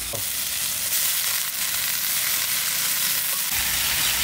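Chopped amaranth greens (data shak) and their stalks frying in hot mustard oil in a kadai: a steady sizzle.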